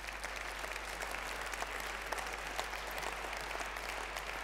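Conference audience applauding: a dense, even mass of clapping.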